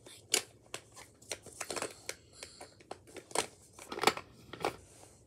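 Irregular handling sounds: rustling, crinkling and about ten sharp clicks or snaps at uneven intervals.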